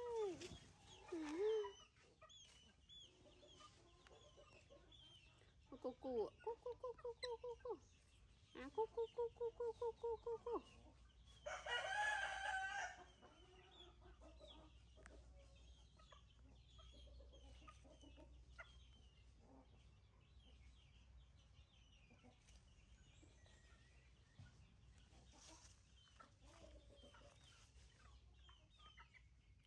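Chickens clucking in two runs of rapid clucks, then a short, harsher rooster crow about twelve seconds in. Faint small bird chirps go on throughout.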